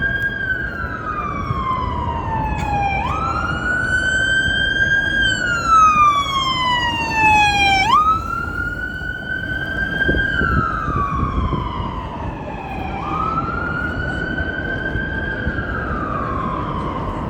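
Ambulance siren wailing: a tone that falls slowly, jumps quickly back up and climbs to its top, repeating about every five seconds, over steady city traffic rumble. It is loudest around six to eight seconds in.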